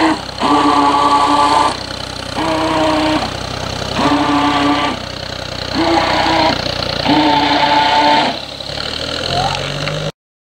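Radio-controlled speedboat's motor whining in bursts of about a second each, five times, as the throttle is pulsed on and off; each burst holds one steady pitch that rises briefly as it spins up and sags as it stops.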